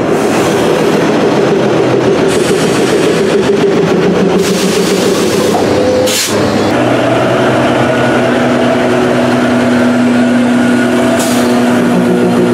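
A narrow-gauge diesel locomotive's engine runs close by as a loud, steady drone of several tones. About halfway through there is a brief hiss, and the engine settles into a different, lower steady note.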